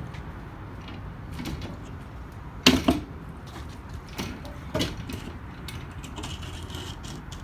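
Hard knocks and clanks of the toy hauler's rear ramp-door patio fittings being handled and locked into place: one loud knock a little under three seconds in, then two lighter ones about a second and two seconds later.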